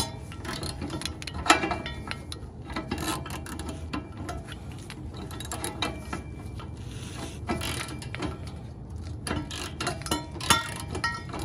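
Ratchet wrench clicking in short, uneven runs as it turns an oxygen-sensor socket, backing a downstream oxygen sensor out of its threads in the exhaust pipe.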